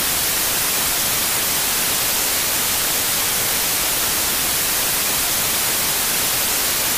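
Loud, steady white-noise static hiss, brightest in the treble, with no music or voice over it.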